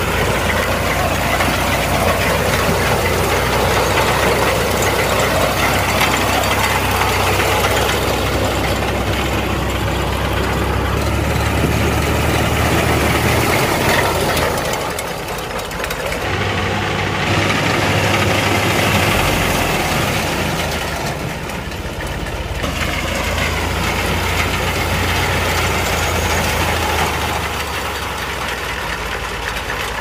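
Diesel engine of a 2005-model Al-Ghazi 65 hp tractor running steadily under load, powering a front-mounted wheat reaper as it cuts standing wheat. The sound dips briefly twice and then picks up again.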